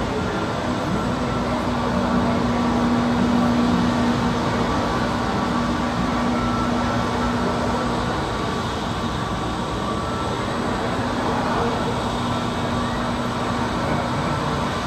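Commercial airliner's engines running: a steady rumble with a low hum that drops out about eight seconds in and comes back a few seconds later.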